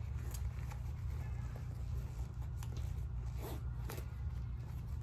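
Backpack being handled while its straps are adjusted: faint nylon scraping and rustling with a few short clicks, over a steady low hum.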